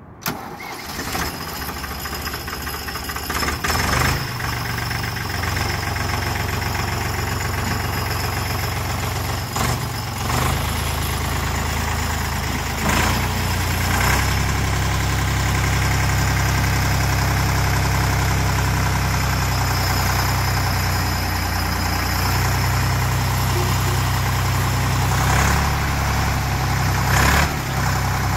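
Diesel engine of a Deutz-Allis four-wheel-drive loader tractor starting up, then running steadily. Engine speed rises at about four seconds and again about halfway through as the tractor drives off and lifts its loader.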